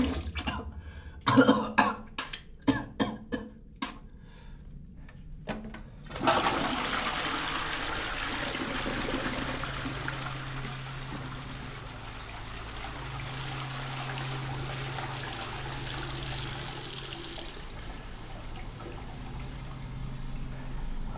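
A few sharp knocks and clicks, then about six seconds in water starts running hard in a bathroom and keeps running.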